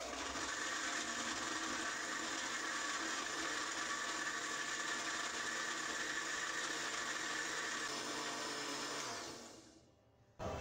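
Electric countertop blender with a glass jar running steadily, blending milk, persimmon pieces and ice cubes into a milkshake, then spinning down and stopping about nine seconds in.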